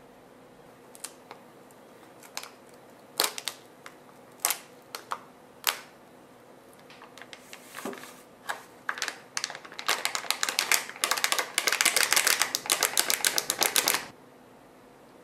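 Light clicks and taps of small objects being handled, then a fast, dense run of clicking for about four seconds that stops abruptly near the end.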